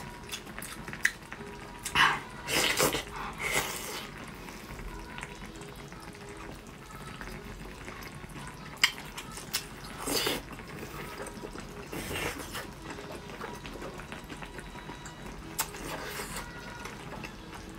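Wet slurping and chewing of broth-soaked honeycomb beef tripe, in short irregular bursts a few seconds apart.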